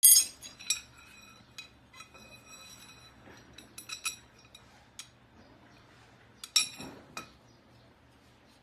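Metal tubes and steel bars of a footrest frame clinking and ringing as they are handled and fitted together. A loud clink comes at the start, then several lighter knocks, and another loud clink about six and a half seconds in.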